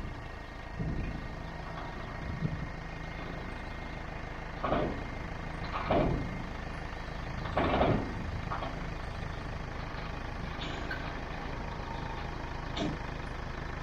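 Truck engine running steadily at idle, with a few short louder sounds from the unloading, the loudest about eight seconds in.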